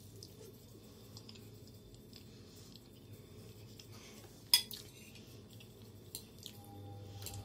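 A fork clinking against a ceramic bowl while eating: small light clinks, with one sharper clink about four and a half seconds in and another near the end.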